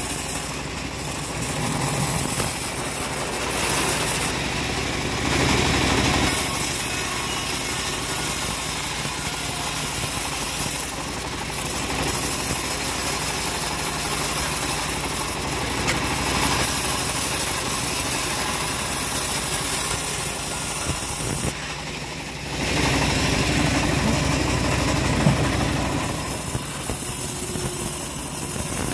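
Homemade bandsaw mill running steadily, its band blade ripping lengthwise through hard jowar timber as the plank is fed through. The sound drops briefly about three-quarters of the way in, then comes back louder.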